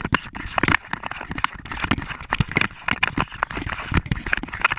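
Close handling noise from a GoPro lying in dry leaf litter: rapid, irregular knocks, scrapes and leaf crackles right at the microphone as it is handled.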